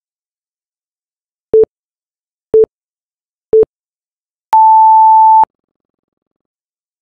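Interval timer countdown beeps: three short low beeps a second apart, then one long higher beep lasting about a second, signalling the start of a 20-second work interval.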